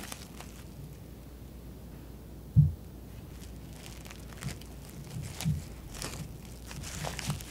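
A single dull thump about two and a half seconds in, then plastic cling wrap crinkling and crackling in short irregular bursts as hands stretch it around a mini kabocha squash.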